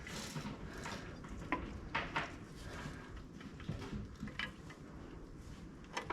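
Scattered light metallic clicks and clinks of drum brake shoes and their hardware being handled and fitted onto the backing plate.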